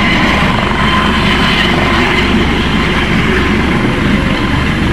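Dauphin-type helicopter with a shrouded tail rotor hovering low over the ground: a loud, steady run of rotor and turbine noise with a low rumble underneath.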